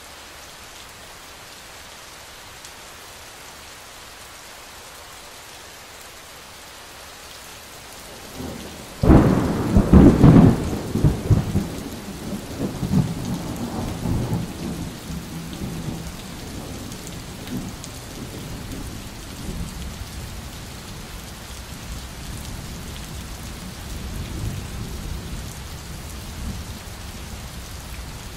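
Steady rain falling, then about nine seconds in a sudden thunderclap that rolls into a long low rumble, dying away slowly under the rain.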